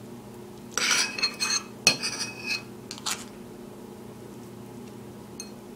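A metal spoon scraping and clinking against a ceramic bowl: a quick cluster of clinks with a short ringing, starting about a second in and stopping after about three seconds.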